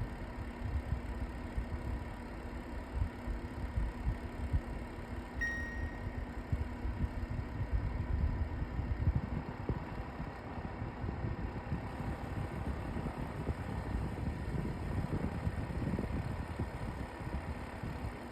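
LG AeroTower purifier fan running with a low, uneven rattling vibration over a steady hum, swelling at times; a short beep about five seconds in. It is the vibration noise the owner hears at higher fan levels, which LG's engineer calls normal above level 5 but which persists after a new filter.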